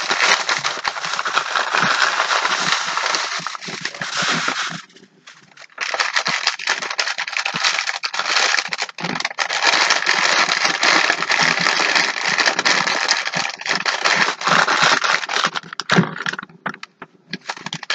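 A plastic shopping bag and newspaper wrapping crinkling and rustling as an item is pulled out and unwrapped, full of sharp crackles. It lulls briefly about five seconds in, and again shortly before the end.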